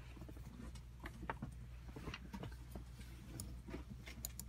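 Wired gaming mouse handled and moved on a mouse pad: faint, scattered ticks and clicks at irregular times, with a few sharper high ticks near the end.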